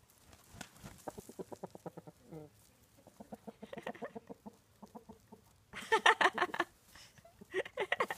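Chickens clucking in quick runs of short clucks, with two louder calls about six seconds in and again near the end.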